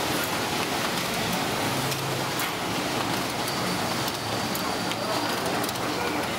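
Photocopier running, a steady noise with scattered light clicks as copied pages feed out into the output tray.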